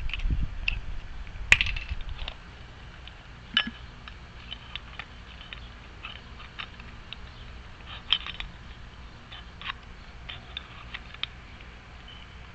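Scattered small metallic clicks and taps of door lock parts being handled and fitted, the sharpest about a second and a half in.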